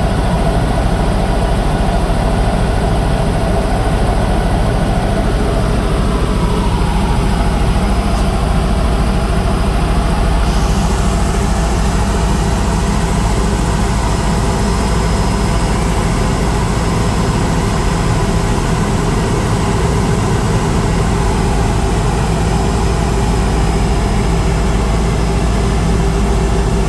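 Helicopter engine and rotor running with a loud, steady drone; one of its tones drops slightly in pitch about six seconds in.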